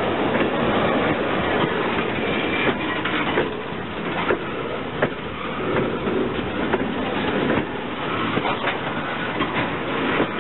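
Railroad tank cars of a freight train rolling past on the track: steel wheels rumbling steadily on the rails, with irregular sharp clicks and knocks as the wheels pass over the rail joints.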